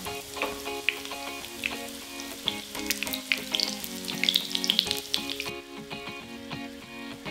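Dough triangles shallow-frying in hot vegetable oil in a pan, sizzling steadily with many sharp crackling pops.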